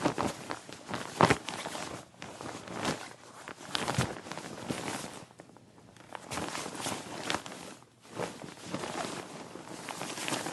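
Winter coat fabric rustled and handled: continual swishing and crinkling with sharp rustles, the loudest just over a second in. It eases off about halfway through and again briefly near the end before picking up.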